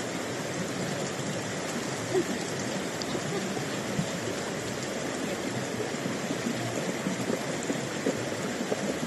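Steady rush of water from heavy rain and flooding, with a few small taps or splashes standing out.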